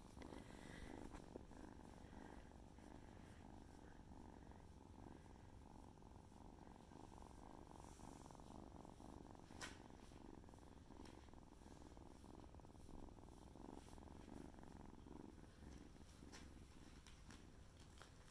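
Kitten purring softly and steadily, with a few faint clicks from being handled.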